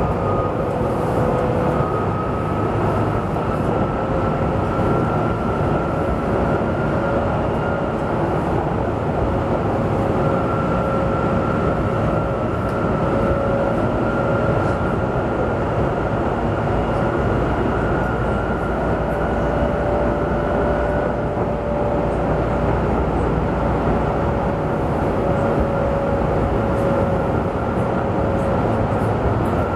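Duewag B80D light-rail car running between stops, heard inside the passenger compartment: a steady rumble of wheels on rail with a faint motor and gear whine that creeps slowly up in pitch, then shifts and drops about twenty seconds in.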